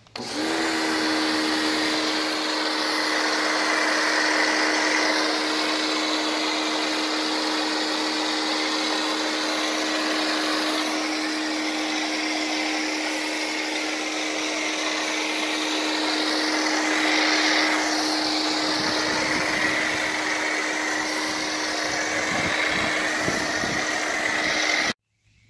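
Sun Joe electric pressure washer running steadily while its foam cannon sprays soap foam: a constant motor hum under the hiss of the spray. It cuts off suddenly near the end.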